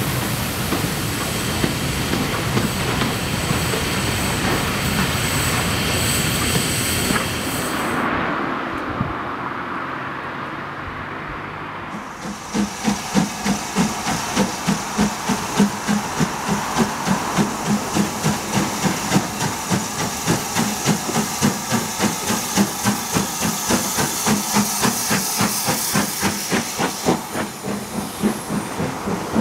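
Steam locomotive running: a steady hiss at first, then, after a quieter patch, chuffing in even beats about two a second.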